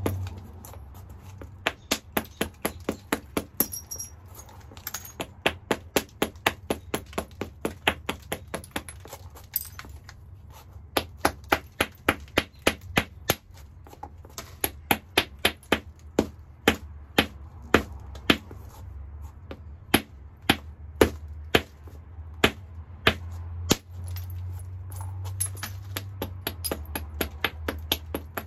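Hammerstone tapping along the edge of a hornstone biface: sharp stone-on-stone clicks in quick runs of several a second, with short pauses between runs.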